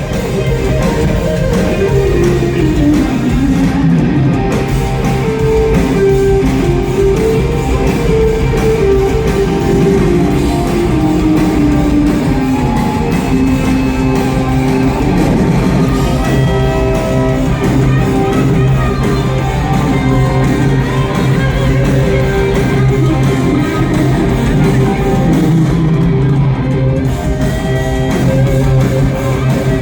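Live rock band playing, with electric guitar to the fore over bass; the lead line slides up and down in pitch.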